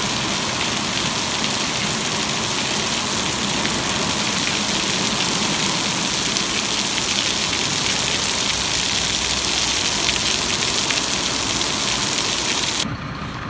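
Heavy downpour of rain, a dense steady hiss of rain on hard surfaces, cutting off abruptly near the end.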